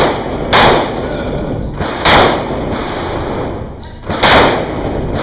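Handgun shots in an indoor range: one right at the start, then three more about one and a half to two seconds apart. Each shot is loud and echoes off the concrete walls.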